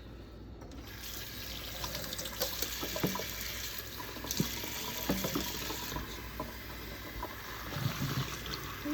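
Tap water starts running into a sink about a second in and keeps running, with occasional sharp clinks and knocks as the tumbled brass and steel shell casings are rinsed.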